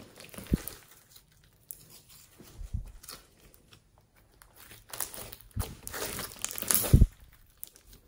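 Fluffy slime with small foam beads being squeezed, folded and stretched by hand: sticky crackling and tearing as it is worked and pulled apart. The sounds come in irregular bursts, busiest about five to seven seconds in, with one sharp loud pop near seven seconds.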